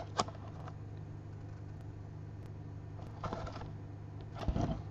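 Hands handling a cardboard box of trading cards: two quick taps at the start, then two short rustles about three and four and a half seconds in, over a steady low hum.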